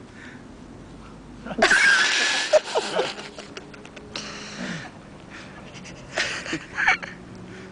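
A person's breathy vocal sounds in bursts: a long loud one about one and a half seconds in, a shorter one near the middle, and two short ones near the end.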